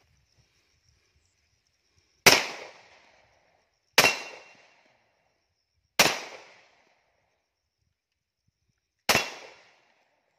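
Four single pistol shots, about two to three seconds apart, each a sharp crack that dies away over about half a second.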